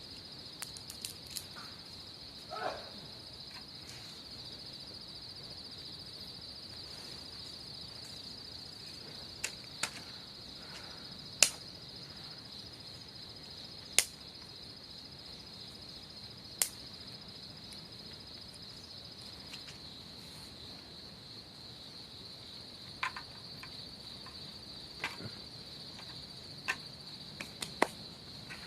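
Steady high insect chorus, like crickets trilling, with sharp snaps and clicks every few seconds; the loudest snaps come about halfway through.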